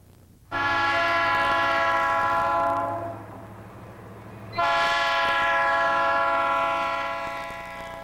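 Diesel locomotive air horn sounding two long blasts, the second starting about four and a half seconds in and fading away near the end.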